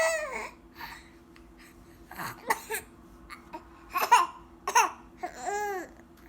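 A baby making a new vocal sound. A high squeal falls in pitch right at the start, then come a few short breathy bursts like laughs, and near the end a longer squeal rises and falls in pitch.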